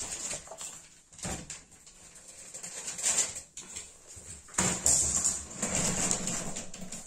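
Sheets of patterned scrapbook paper rustling as they are handled, then scuffling and bumping noises, loudest for about two seconds near the end, with a dog whimpering faintly at times.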